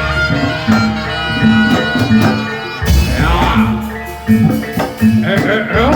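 Live Javanese barongan accompaniment music: drums and ringing pitched percussion playing a repeating pattern, with voices rising over it about halfway through and near the end.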